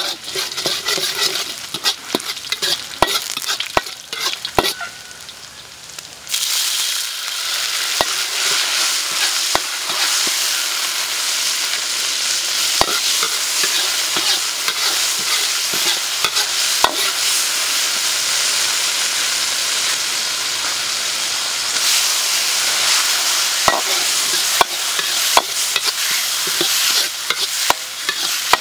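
Chopped aromatics and chili frying in oil in a wok, stirred with a metal ladle that clicks and scrapes against the pan. About six seconds in the sizzling jumps much louder and stays steady, with ladle strokes on and off.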